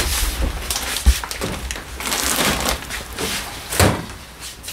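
Kitchen handling sounds from preparing a sauce: rustling with scattered light clicks and knocks, and a sharper knock about a second in and another near four seconds.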